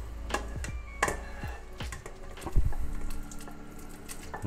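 Wooden spatula scraping and knocking against a frying pan as sautéed cabbage and tomato are pushed off into a pot of broth, with soft wet plops as the vegetables drop in. A series of short knocks, the loudest about two and a half seconds in.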